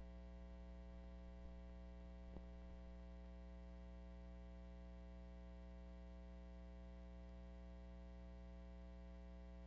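Near silence: a steady low hum, with one faint click about two and a half seconds in.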